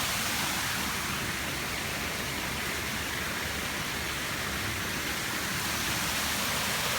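Waterfall: falling water making a steady, even rush of noise.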